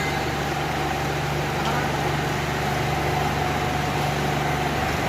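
Block ice making machine running: a steady low hum with a constant whine above it. The low hum drops away near the end.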